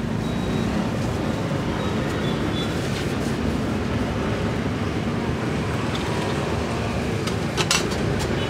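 Steady street traffic noise running on, with a couple of sharp clinks near the end.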